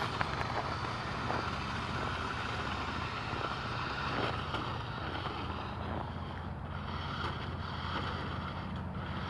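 Steady outdoor rumble with wind on the microphone and a constant low hum, broken by a few soft knocks.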